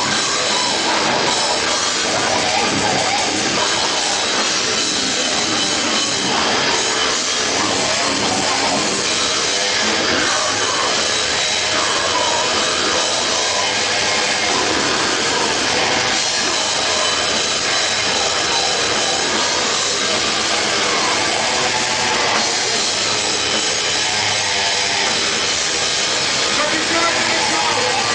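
Deathcore band playing live and loud: distorted guitars and pounding drums with a vocalist growling into a microphone, dense and unbroken.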